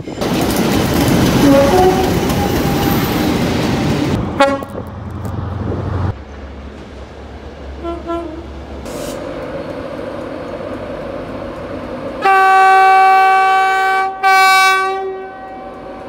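Train horns cut together from several clips. First a train runs through a station, loud and noisy, then a brief horn note comes about four seconds in and a few short toots around the middle. Near the end come two long, loud horn blasts, the second shorter.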